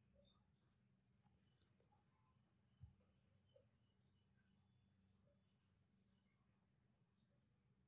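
Near silence: a faint low hum with scattered faint, short, high chirps and a single soft low thump about three seconds in.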